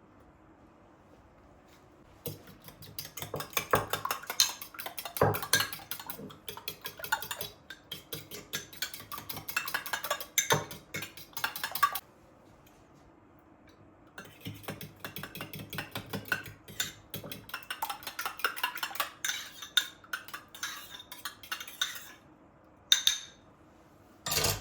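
Dishes and cutlery clinking and clattering: two long runs of quick knocks with a pause of about two seconds between them, then two short knocks near the end.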